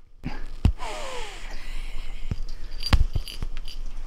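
Young tabby cat huffing sharply through its nose in protest, with scuffling on fabric and several sharp clicks.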